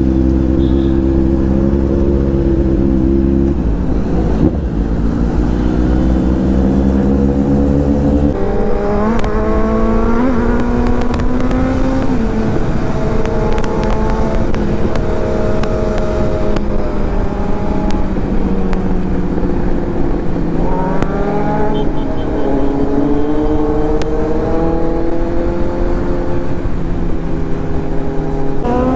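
Kawasaki Z900's inline-four engine under way. It holds a steady note at first, then rises in pitch and levels off several times as the bike accelerates through the gears, with wind rushing over the microphone.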